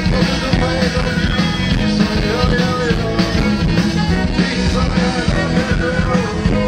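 Live band playing a song through an outdoor stage PA system, heard from within the crowd.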